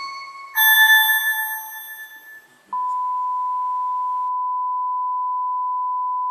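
A note of background music is struck, rings out and fades away. About two and a half seconds in, a steady high test tone, the line-up tone that goes with colour bars, starts abruptly and holds unchanged.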